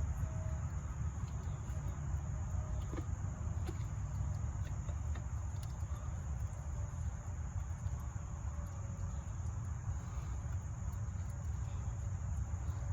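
Steady high-pitched insect drone over a low steady rumble, with a few faint clicks.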